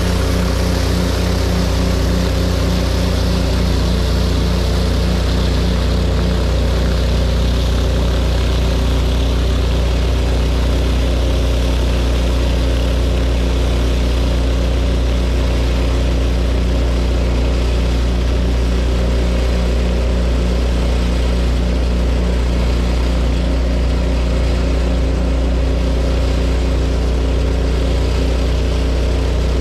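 Two 8-gallon-a-minute pressure-washer engines running steadily together under load, with a steady hiss over the engine sound.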